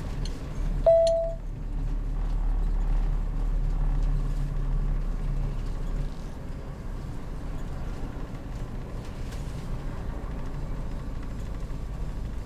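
Heavy motorhome driving, its engine and road noise making a steady low rumble that swells from about two seconds in and eases off again about six seconds in. About a second in, a short, sharp single-pitched beep is the loudest sound.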